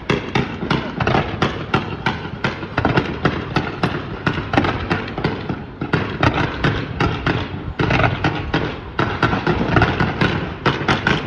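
Fireworks going off in a continuous barrage of bangs and crackles, several a second.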